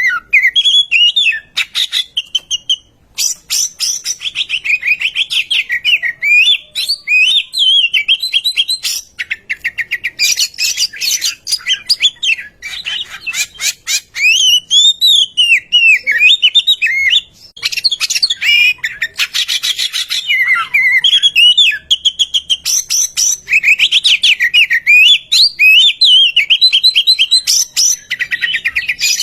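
Oriental magpie-robin singing a continuous, loud song: varied whistled phrases that slide up and down in pitch, broken every few seconds by quick runs of dry ticking notes.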